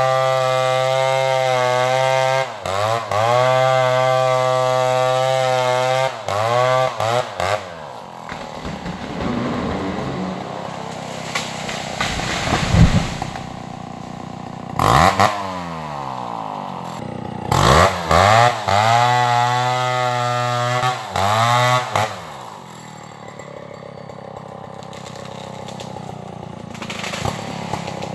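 Stihl 070 two-stroke chainsaw held at high revs for several seconds, its note dipping briefly a few times, then dropping to a lower, rougher running. There is a sharp loud crack about 13 seconds in, and short revs again at 15 s and from about 17 to 21 s, before it settles to quieter running.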